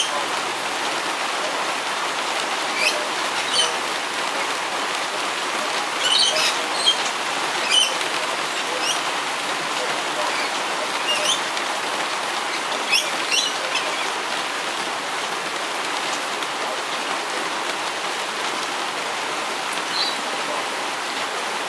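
Heavy rain falling steadily, with brief high-pitched chirps and screeches from a flock of rainbow lorikeets scattered through it, clustered around six to eight seconds in and again around eleven to thirteen seconds in.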